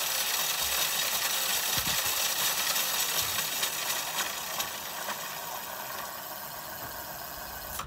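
Razor E300's chain-driven electric motor, switched straight on through an automotive relay, running at full speed: a steady whine with a light rattle. It eases slightly over the last few seconds and stops abruptly at the end.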